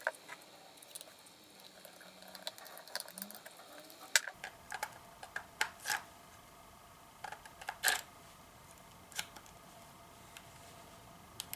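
Scattered small clicks and taps of a Sony Cyber-shot DSC-S650 compact camera being handled as batteries go in and the battery door is shut. The loudest is a sharp click about eight seconds in.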